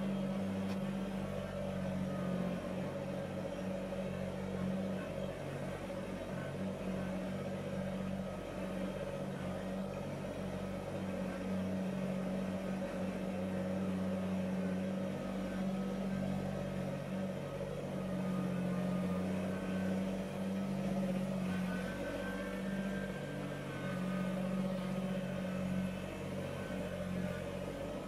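Kubota BX compact tractor's three-cylinder diesel engine running at a steady speed as the tractor drives along, a constant, even drone.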